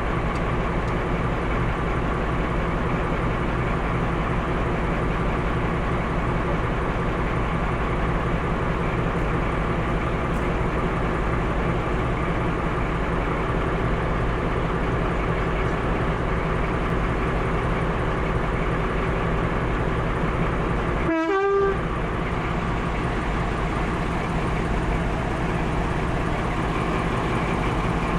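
Class 14 diesel-hydraulic locomotive running steadily with its train under way. There is a brief dropout with a warbling tone about twenty-one seconds in.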